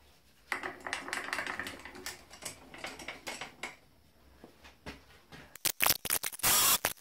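Rapid small metallic clicks and rattles as tooling is handled at a bench milling machine, followed near the end by a quick run of louder sharp clicks and knocks.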